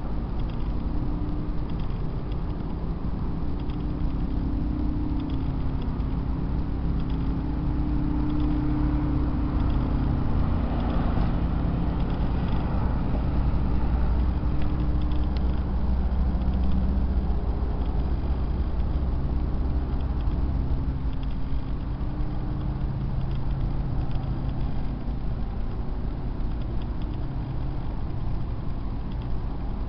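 Low droning hum of unknown outdoor origin, with several steady low tones that swell and fade over a rumbling background, rising slightly in the middle.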